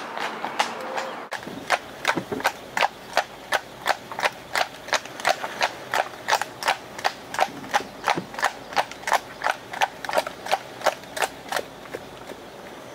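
Hooves of a Clydesdale cross Irish Draught mare trotting on a tarmac road: a steady clip-clop of about three strikes a second, which stops near the end.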